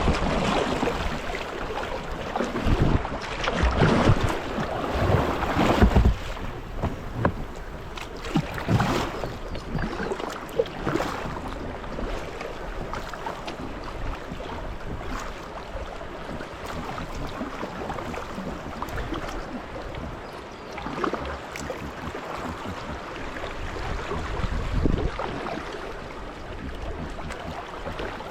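River water splashing and rushing around a kayak, with wind buffeting the microphone. It comes in uneven gusts for the first six seconds, then settles into a steadier rush.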